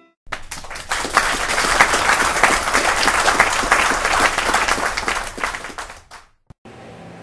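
Audience applauding. The clapping starts abruptly and fades away about six seconds in.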